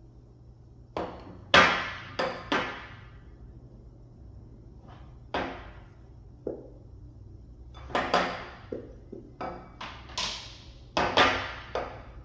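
A nearly empty plastic glue bottle squeezed again and again to force out the last of the glue: a series of short, sharp squirts, each dying away quickly.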